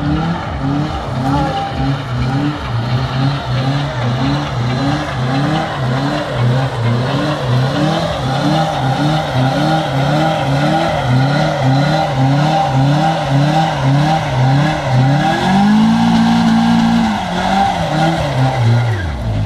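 FSO Polonez with a 1.4-litre 16-valve engine doing a burnout. The engine is held at high revs that surge up and down about twice a second while the spinning rear tyre squeals. Near the end the revs hold steady and higher for a second or so, then fall away.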